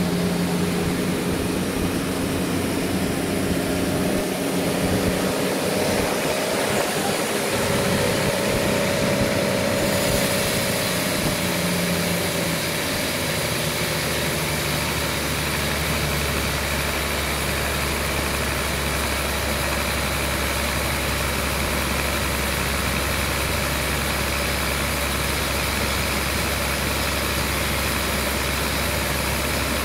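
Sawmill engine running steadily. About a third of the way in the sound changes and a deeper steady hum takes over.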